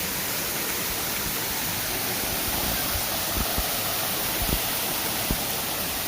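Steady rushing of Shiraito Falls, a wide curtain of many thin streams of water pouring down a rock face. A few low thumps come through in the second half.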